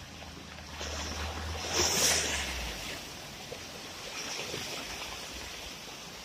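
Fast-flowing, muddy floodwater rushing over a road as a car wades through it, with a louder splashing surge about two seconds in. A low rumble sits under the water sound for the first couple of seconds.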